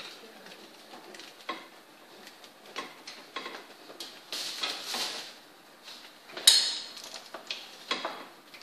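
Clicks, knocks and rattles of a tripod stand being adjusted with a mannequin head on it, with a scraping rustle around four to five seconds in and one sharp metallic click, the loudest, at about six and a half seconds.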